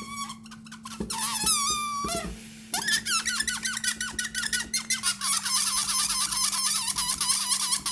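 Rubber balloon squeaking: a few short gliding squeaks, then from about three seconds in a long run of rapid, warbling high-pitched squeaks.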